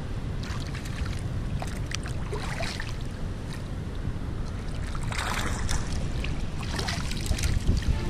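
Water sloshing and splashing as hands haul a gill net through lagoon water, with the loudest splash about five seconds in, over a steady low rumble.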